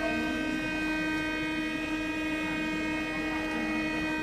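Paris Métro MF 77 train's door warning buzzer: a single steady buzzing tone held unbroken, the signal that the doors are about to close.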